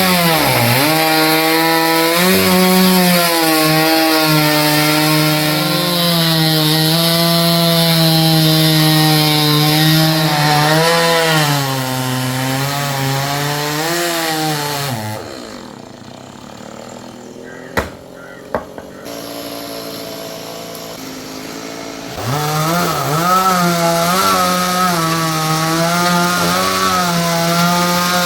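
Stihl chainsaw running at full throttle through a venga log, its pitch sagging and recovering as the chain loads in the wood. About fifteen seconds in the engine drops away, two sharp knocks sound, and then the saw revs back up and cuts again.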